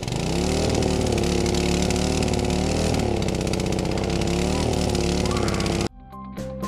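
A motor running steadily, its pitch wavering slowly up and down, cutting off abruptly about six seconds in.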